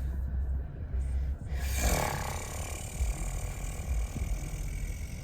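A person's long, sigh-like breath about two seconds in, over a steady low rumble.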